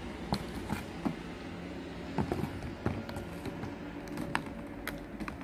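A few light, sharp clicks and knocks of small objects being handled, over a steady low background hum.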